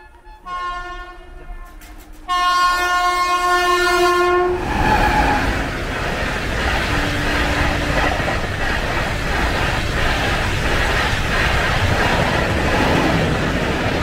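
Indian Railways express locomotive horn sounding two blasts, the second longer and louder, then the Duronto Express coaches passing at speed with steady wheel and rail noise.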